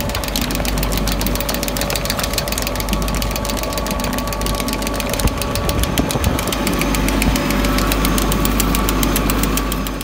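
Compact tractor engine running steadily while driving over tilled ground, with a rapid clattering tick over a low hum.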